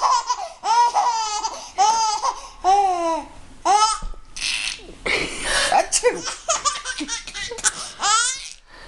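Baby laughing hysterically: a run of high-pitched squealing laughs, about two a second, broken around the middle by a couple of seconds of breathy noise, then picking up again near the end.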